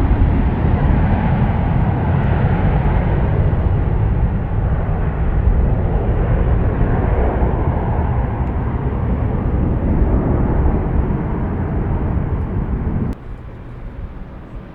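Passing airliner's engines: a loud, steady rumble that slowly fades, then cuts off suddenly about thirteen seconds in.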